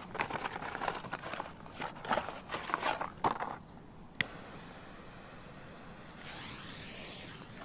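Irregular rustling and scraping handling noises for the first few seconds, then one sharp click about four seconds in, followed by a soft hiss near the end.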